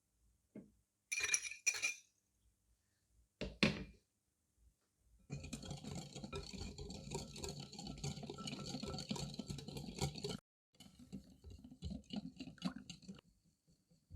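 A kitchen utensil clinks twice against a bowl and knocks once. Then comes about five seconds of quick clattering mixing in the bowl, and a shorter, sparser bout of mixing after it.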